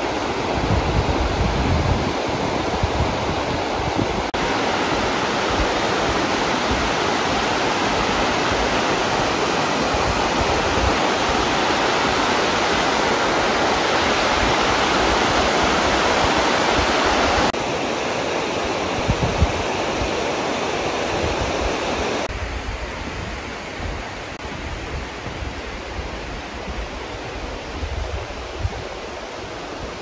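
A shallow river rushing over a stony bed, a steady wash of water, with wind buffeting the microphone in low gusts. The water noise changes level suddenly a few times, stepping down about two-thirds of the way through.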